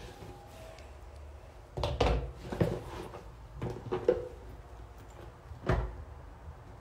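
Handling noise from a smartphone being moved about, with a run of dull knocks and thumps about two seconds in and another near the end.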